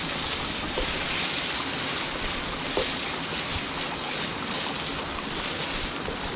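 Sweet and sour sauce of tomato sauce, garlic, onion, ginger and carrot cooking in a pan over a wood fire: a steady sizzling hiss with a few faint crackles.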